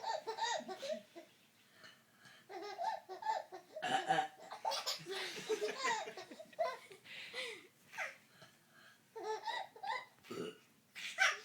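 A baby laughing in repeated bursts of giggles and belly laughs, with short pauses between them.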